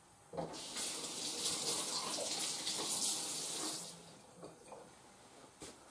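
Kitchen faucet running, water splashing into the sink with a steady hiss, shut off about four seconds in.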